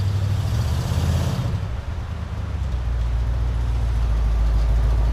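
Motor vehicle running with a steady low rumble, with a louder, hissier stretch in the first second or so.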